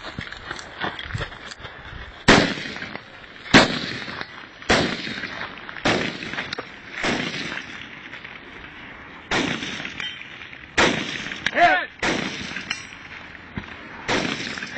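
Rifle shots fired one at a time at a steady, deliberate pace, about nine or ten over the stretch, mostly a second or so apart with a longer pause midway.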